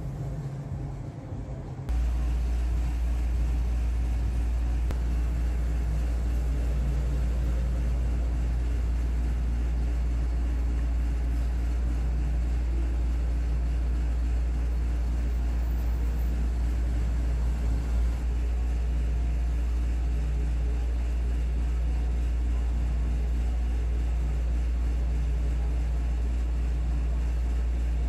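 A steady low rumble that starts suddenly about two seconds in and then holds at an even level.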